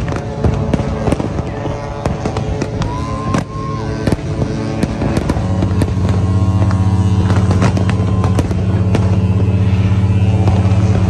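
Fireworks display, with many cracks and pops from shells bursting overhead and a short whistling glide about three seconds in. About halfway through, a loud, low, steady drone comes in beneath the bangs and becomes the loudest sound.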